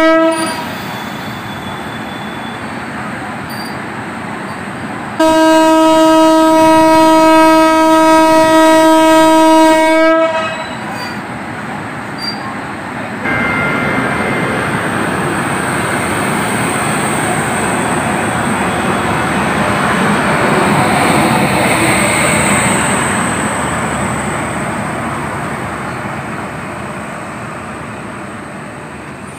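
WAP-7 electric locomotive's horn sounding for departure: a blast cuts off right at the start, and a second long steady blast of about five seconds comes about five seconds in. Then the train pulls out, its wheels and coaches rolling past with a rumbling clatter that grows louder toward the middle and fades near the end.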